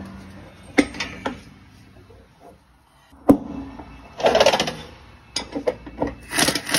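A Snap-on air impact wrench with an inch-and-an-eighth socket tightening the truck's drive-axle bolts: a couple of sharp clanks of tool on metal, then two short bursts of rapid hammering in the second half.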